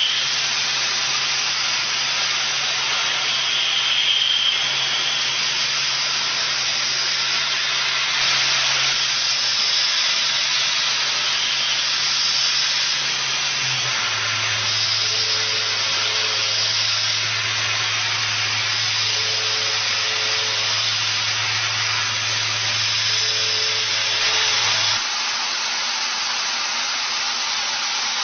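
CNC machine running while machining a gear: a steady hiss over a low motor hum. The hum drops in pitch about halfway through and cuts off near the end. Short double tones sound three times in the second half.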